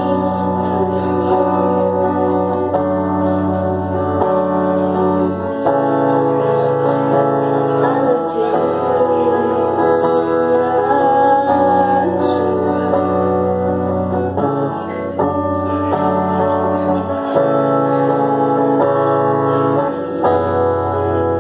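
Guitar played through a steady run of chord changes, the bass notes moving every second or two.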